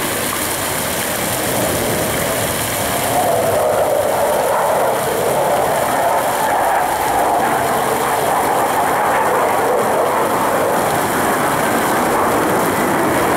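Aircraft engines roaring as a plane flies over the city, a steady roar that swells about three seconds in and drifts slowly in pitch.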